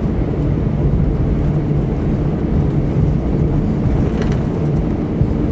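Cabin noise inside an Airbus A320 rolling on the ground after landing: a steady low rumble of the jet engines and the wheels on the pavement.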